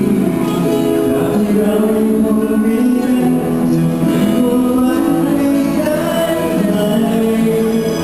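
A singer holding long sung notes over acoustic guitar accompaniment.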